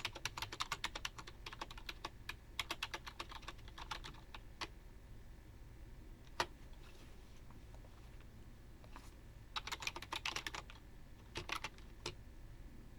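Typing on a Furycube IP98 wired membrane keyboard: quick runs of soft key clicks, with pauses of a few seconds between bursts.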